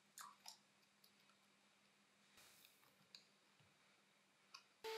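Faint, sparse clicks of a battery adapter circuit board and its plastic terminal block being seated in a lithium-ion battery pack and a small screw being driven into the board. A steady hum starts right at the end.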